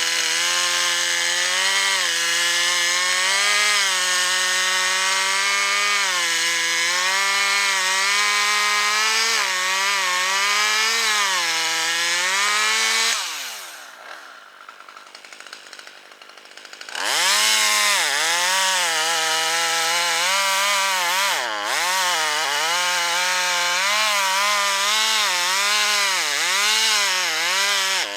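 Chainsaw cutting wood near full throttle, its engine pitch wavering and dipping as the chain loads up in the cut. About 13 seconds in the engine falls back toward idle, and about 17 seconds in it is revved up again and keeps cutting, with repeated dips in pitch.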